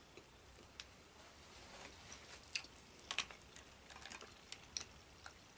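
Faint, scattered clicks and small cracks from hands picking apart boiled crawfish in a glass dish.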